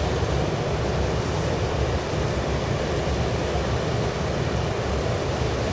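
Steady low engine drone and churning water of a Sakurajima car ferry moving close by.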